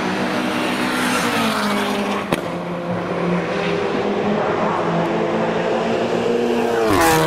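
Ford Focus Mk2 Silhouette race car's 2.3-litre Duratec four-cylinder racing engine at full throttle as the car passes. The pitch drops as it goes by, with a sharp crack about two seconds in, then the engine note climbs steadily as it pulls away. Near the end the pitch falls sharply.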